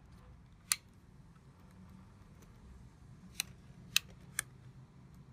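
Sharp plastic clicks as continuous-ink-system cartridges are pressed back into the print-head carriage of an Epson 1430W inkjet printer: one click, then three in quick succession a few seconds later.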